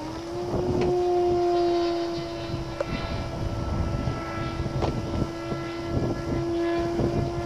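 Maxi Swift FPV model plane's motor and propeller droning at a steady pitch in flight, rising slightly at the start and easing a little lower later on, with wind buffeting the microphone.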